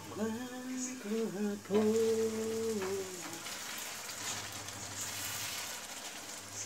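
Tomato and onion sauce sizzling in oil in a frying pan as it is stirred with a plastic spatula, the sizzle standing out after about three seconds. Over the first three seconds a voice hums a few held notes, louder than the sizzle.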